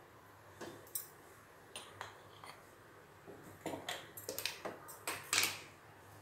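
Scattered light clicks and clinks of metal kitchenware, a dozen or so, coming thicker and louder in the second half, the loudest about five seconds in, over a faint steady hum.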